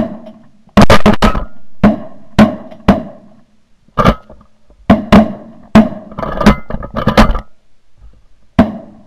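A rapid volley of shotgun shots from several hunters firing at flushing Canada geese: around fifteen sharp blasts over nine seconds, some in quick pairs.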